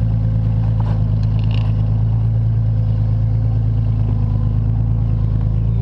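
Off-road rock-crawling truck's engine running steadily at low revs, holding one pitch.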